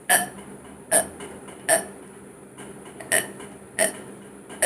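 A woman's short, sharp hiccups, forced on purpose: six in quick succession, under a second apart, with a longer pause after the third.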